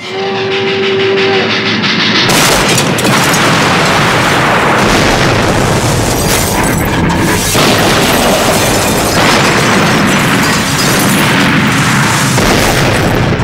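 A steam locomotive's whistle sounds briefly and steadily, then a string of heavy explosions follows from about two seconds in, one blast running into the next.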